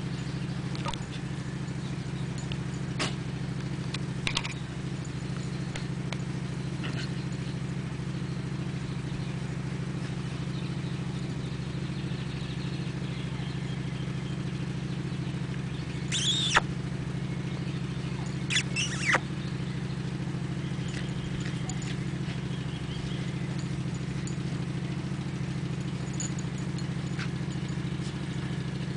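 A steady low mechanical hum runs throughout. A few short, high squeaks break in, two of them clearest about halfway through.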